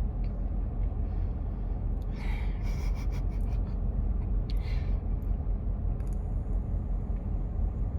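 A long drawn-in breath through a vape, a soft hiss lasting about a second and a half, then a shorter breathy exhale. A steady low rumble runs underneath.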